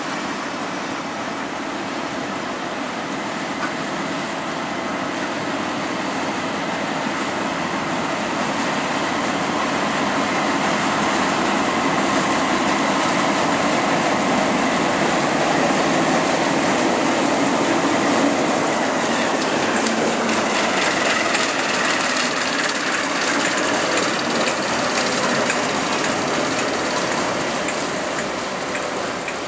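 Class 08 diesel shunter and its rake of empty open wagons passing: the rumble of wagon wheels on the rails and the shunter's diesel engine, louder as the locomotive goes by about halfway through and easing off near the end.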